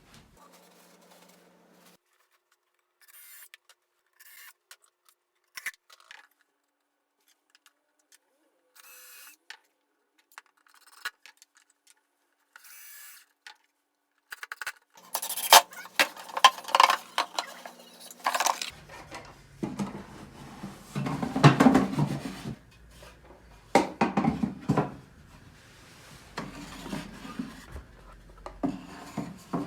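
Wood rubbing and scraping against wood in irregular strokes. The strokes are short and sparse at first, then closer together and louder about halfway through, with a few sharp knocks.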